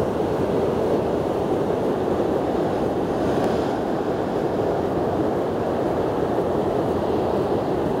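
Heavy ocean swell breaking over a rocky shore: a steady roar of surf, with a brighter hiss of breaking water about three and a half seconds in.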